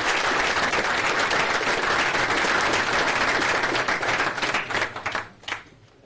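Audience applauding: many hands clapping in a dense, steady patter that dies away about five seconds in.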